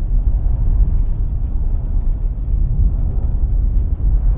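A film sound effect of a race car crashing and tumbling in slow motion: a deep, heavy rumble with no clear separate impacts. A faint, thin high ringing tone comes in about a second and a half in.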